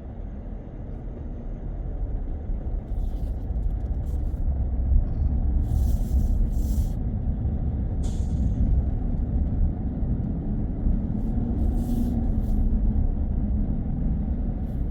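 Road noise of a car being driven: a steady low rumble that grows louder over the first few seconds, with several short hisses mixed in.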